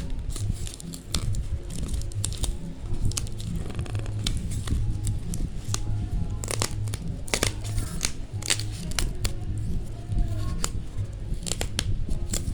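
Background music with a steady low beat, over repeated sharp clicks, crinkling and tearing of a screen protector's packaging being handled and opened.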